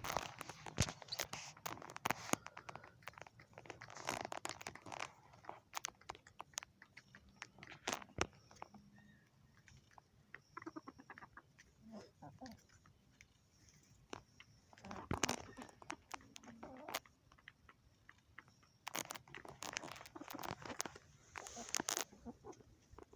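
Chickens pecking and eating feed up close: rapid, irregular sharp taps of beaks on the feed, coming in denser flurries now and then.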